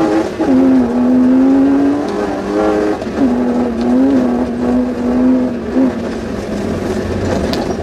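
Off-road rally Suzuki Vitara's engine heard from inside the cabin, running hard at high revs, its pitch dropping and climbing again a few times as the driver works the throttle and gears. A sharp knock comes near the end.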